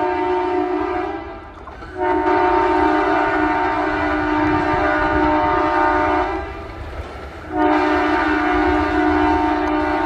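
Indian Railways WDM3A diesel locomotive's multi-tone air horn sounding in long, steady blasts. One blast ends about a second in, a second runs about four seconds, and a third starts past the middle and holds on.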